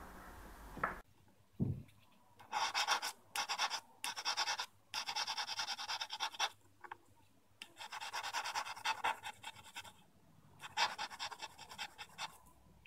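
Flat hand file rasping over an 18ct gold ring's rubover setting, filing down and shaping the gold freshly built up by welding. It comes in six bursts of quick strokes with short pauses between them.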